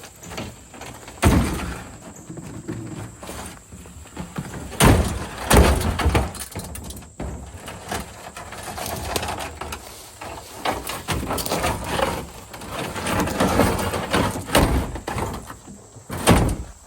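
Several loud knocks and bangs, with scraping and rattling in between, as heavy containers and gear are shifted by hand.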